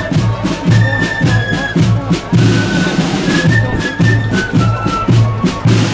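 Marching flute band playing a tune: flutes carry the melody over a steady bass drum beat and side drums.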